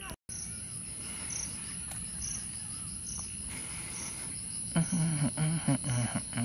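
Insects chirping in a regular pulse about twice a second over a steady high buzz. The sound drops out for a moment just after the start. A low voice comes in about five seconds in.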